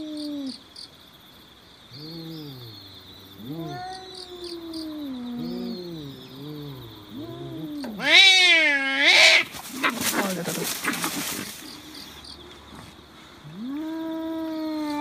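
Two cats, an orange cat and a grey tabby, caterwauling at each other in a fighting standoff: low, wavering growling yowls from about two seconds in, a loud high yowl that rises and falls about eight seconds in, then a harsh noisy burst, and another long drawn-out yowl near the end.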